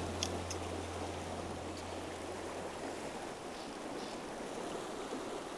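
River water rushing over rocks in a shallow riffle, a steady rush, with a few faint ticks near the start.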